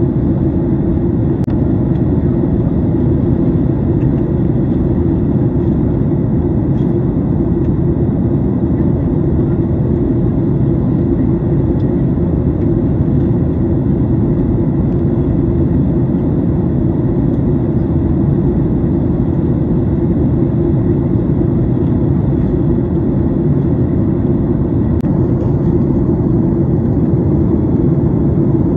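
Steady, deep cabin noise of a Boeing 737 MAX 8 in the climb after takeoff: its CFM LEAP-1B turbofan engines and the airflow over the fuselage, heard from a window seat.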